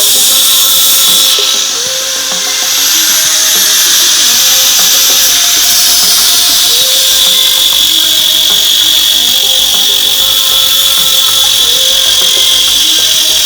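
Electric wood router running with a steady high-pitched whine as it cuts the edges of glued plywood, easing briefly about a second and a half in. Background music plays underneath.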